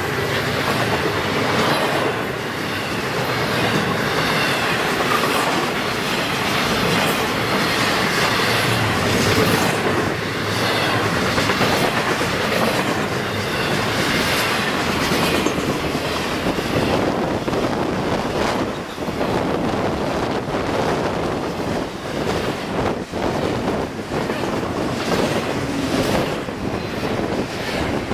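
A freight train's trailer flatcars and double-stack container cars roll past close by in a steady rumble of steel wheels on rail, with repeated wheel clacks.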